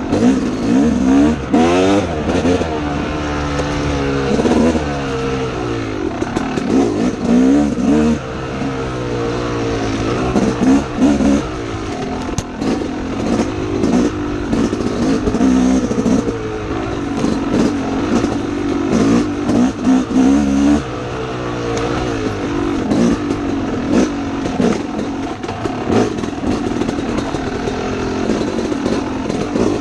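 Dirt bike engine revving up and down repeatedly as the rider works the throttle along tight trail, with the pitch rising and falling every second or two. Knocks and clatter from the bike and brush are mixed in.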